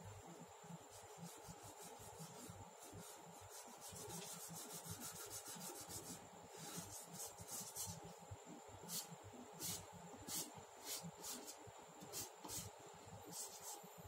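A black drawing stick scraping on paper as a leaf is shaded in. The strokes are faint: a run of quick back-and-forth strokes, then slower, separate strokes about one or two a second.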